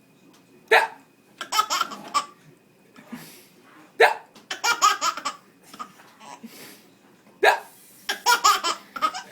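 An adult's pretend hiccups, three sharp gulps about three seconds apart, each answered by a baby's burst of belly laughter in quick pulses.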